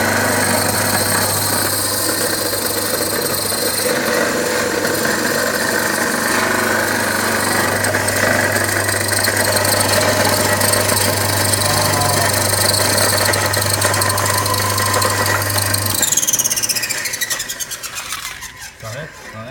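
Industrial stainless-steel coffee grinder running at full speed: its induction motor hums steadily and its toothed steel grinding discs make a loud, rough whirring noise. About three-quarters of the way through, the machine is switched off, and the whir sinks in pitch and fades as the discs spin down.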